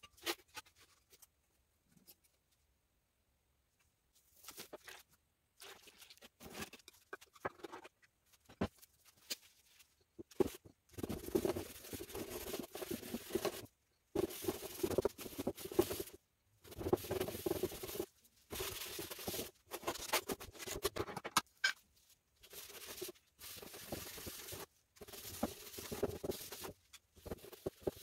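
Scratchy rubbing on a plywood board, in short stop-start stretches of a second or two with silent gaps, beginning about four seconds in.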